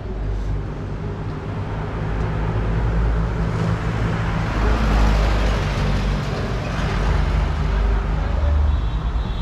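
A motor vehicle passing close on the street, its engine rumble and road noise swelling to a peak about halfway through and then fading, over steady traffic noise.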